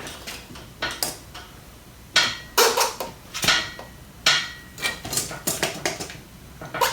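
A series of sharp metallic knocks and clanks, about ten irregular strikes with a couple ringing briefly, from hands and tools working metal parts on a motorcycle's front end.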